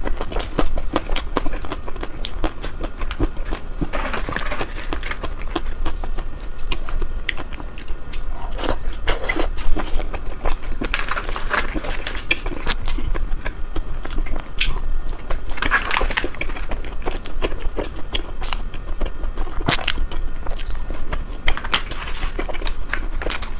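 Close-miked biting and chewing of ice cream: a steady run of small wet crackling clicks, with a louder bite every few seconds.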